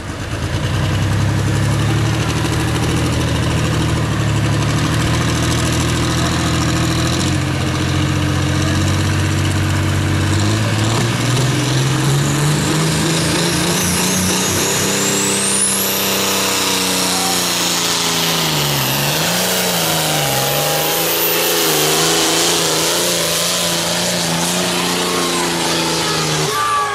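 Hot-farm-class pulling tractor's turbocharged diesel engine running flat out under load as it drags a weight-transfer sled. The engine note climbs between about ten and fifteen seconds in, while a high turbo whistle rises steeply and then holds. Later the revs dip and recover a few times before steadying.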